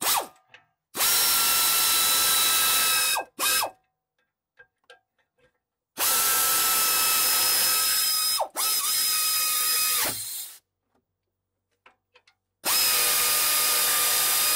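Compressed-air power tool run in three long bursts, the middle one about four seconds: a steady whine over a high air hiss, the pitch sagging each time the trigger is let go.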